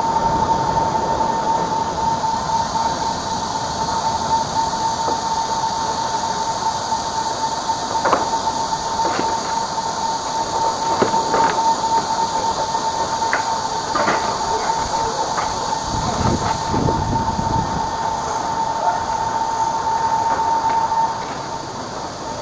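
High-pressure drain jetter running steadily with a high whine, jetting water through the hose to clear a blocked rainwater downpipe, with a few sharp knocks along the way. The whine cuts off about 21 seconds in and the running drops quieter.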